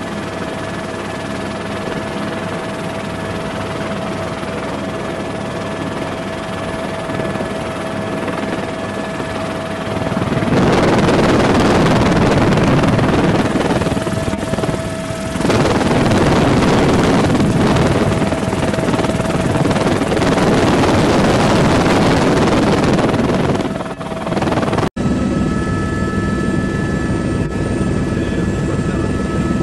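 Steady rotor and engine noise of aircraft filming from the air, with a few held tones. A louder rushing noise fills the middle stretch. After a sharp cut about 25 seconds in, it becomes the steady engine and rotor drone inside a helicopter cabin.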